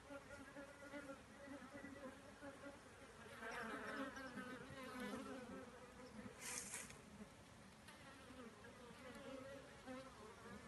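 Honeybees buzzing faintly at a hive entrance, a steady pitched hum that grows louder for a second or two about three and a half seconds in. A brief hiss sounds about six and a half seconds in.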